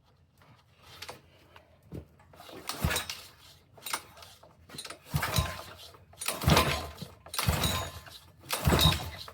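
Several quick yanks on the recoil starter cord of a Honda GC190 engine, about one a second, turning it over without it catching. It is on choke with raw gas poured into the intake.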